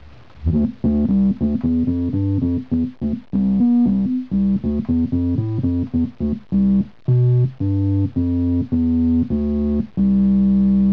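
LushOne single-board synthesizer playing a quick run of short notes with oscillator 1 set to a square wave through its filter, giving a woodwindy tone a bit like an organ pipe. A longer note is held near the end.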